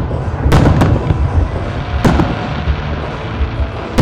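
Aerial fireworks shells bursting overhead: three sharp bangs in the first two seconds and another right at the end, over a steady low rumble.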